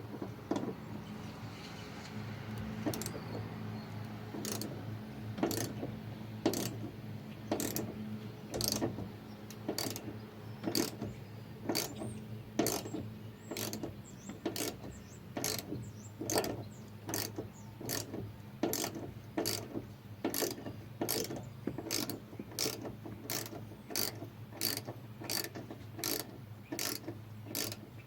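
Socket ratchet wrench clicking stroke after stroke as a bolt is turned, the clicks coming about once a second at first and quickening to nearly twice a second.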